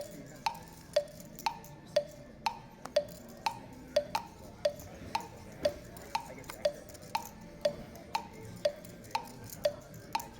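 Background music: a steady beat of wood-block ticks, about two a second, alternating between a higher and a lower tone.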